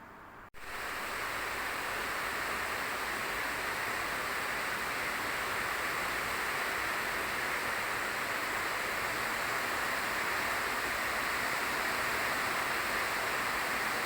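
Heavy rain falling steadily, an even hiss that starts suddenly about half a second in.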